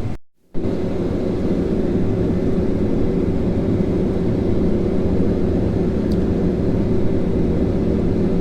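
Combine harvester running steadily while harvesting corn: a constant mechanical drone with a steady hum, cut off briefly for about half a second just after the start.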